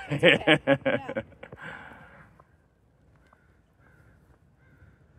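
A person laughing, a quick run of about six 'ha' pulses in just over a second, trailing off into a breathy exhale.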